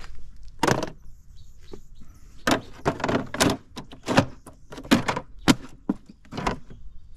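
Footsteps: about eight irregular steps, each a short scuff, some a second apart and some closer together.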